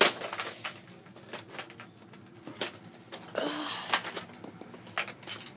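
Plastic clicks and knocks of a Nerf blaster's parts being handled and fitted together, with a short breathy sound about three and a half seconds in.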